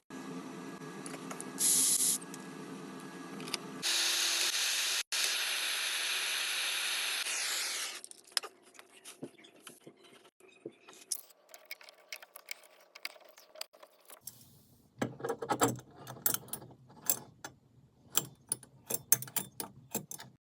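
Tub spout installation work: a low hum with a brief hiss, then a few seconds of loud, steady hissing rush that stops abruptly, then scattered clicks and a busy stretch of clicking and knocking of metal parts and tools.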